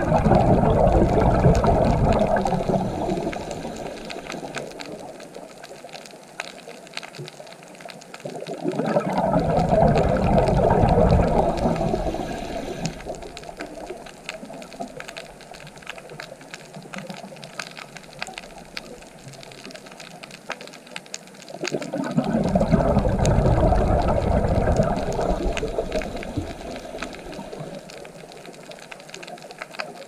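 Water surging in three swells, each rising and fading over several seconds, with a softer wash of water in between.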